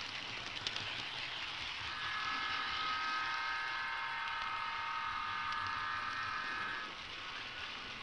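HO-scale model train running along the track, heard as a steady rushing noise with a few clicks near the start. About two seconds in, a steady chord of high tones joins and holds for about five seconds before cutting off.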